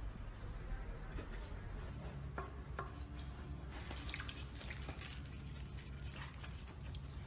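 An owl bathing in a shallow bowl of water, flapping and dunking itself: a run of small, irregular splashes and drips.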